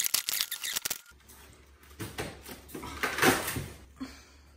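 A small blade cutting and scraping through duct tape over a styrofoam packing box: a quick run of short crackling strokes in the first second. After a break about a second in, irregular rustling and scuffing follows, loudest around the middle.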